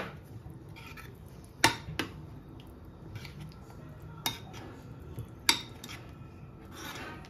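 A spoon stirring a thick white mixture with dried dill in a ceramic bowl: soft scraping, with four sharp clinks as the spoon strikes the bowl.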